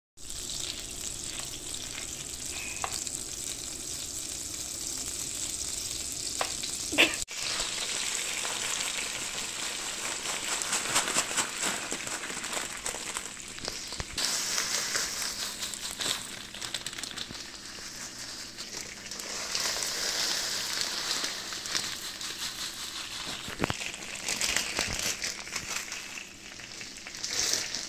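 Butter sizzling in a nonstick frying pan, then fine vermicelli noodles frying in the hot butter as a wooden spoon stirs them through. A steady hiss throughout, with a sharp click about seven seconds in.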